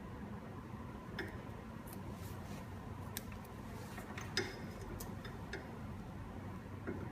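Scattered small clicks and taps from hands handling the peel-test fixture parts and tape, over a steady low hum. The loudest tap comes about four seconds in.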